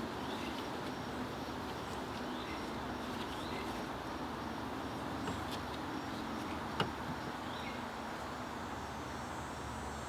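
Steady background hiss with faint high chirps scattered through it and a single sharp click about seven seconds in.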